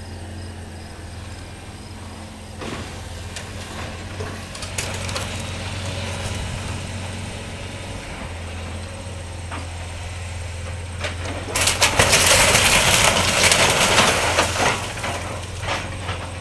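Diesel engine of a heavy demolition machine running steadily, with knocks and crunching of building material being torn down. A loud stretch of crashing and breaking debris starts about twelve seconds in and lasts a few seconds.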